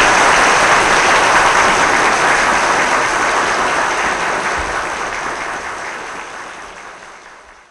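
Audience applause after the closing punchline of a comic monologue. It holds steady, then fades out over the last few seconds as the recording ends.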